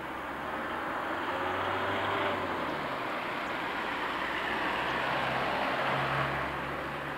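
Road traffic: cars driving past on the road below, tyre and engine noise that swells and then eases off.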